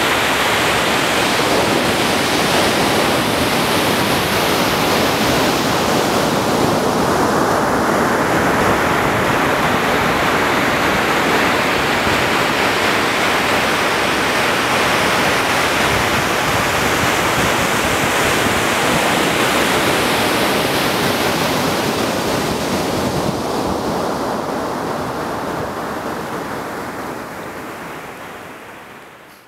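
Ocean surf breaking and washing onto a sandy beach: a steady rushing noise that fades out over the last few seconds.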